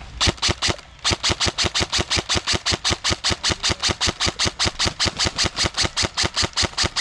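Airsoft gun firing close by in a fast, even stream of sharp shots: a short burst of about four, a brief pause, then a long unbroken string at about six shots a second.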